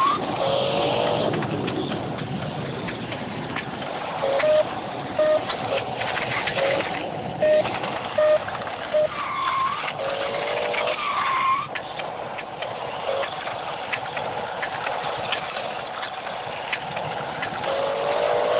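Remote-control toy stunt car's small electric motor whirring as it drives and rears up, with its built-in electronic sound effects playing. A string of short beeps runs for a few seconds in the middle, and swooping electronic tones come twice later on.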